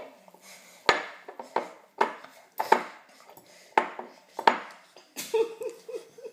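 A baby slapping and knocking a plate against a table, a series of sharp clatters roughly every half second to a second. Near the end come a few short vocal sounds from the baby.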